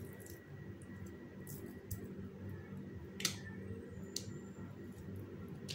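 A few faint clicks and taps as boiled sweet potato is cut with a knife over a stainless steel mixer jar, the clearest about three seconds in, over a low steady hum.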